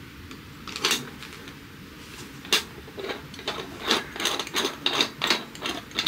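Aluminium stovetop moka pot being put together: a couple of sharp metal clinks, then the upper chamber screwed onto the base in a quick run of short rasping twists of the threads, three or four a second.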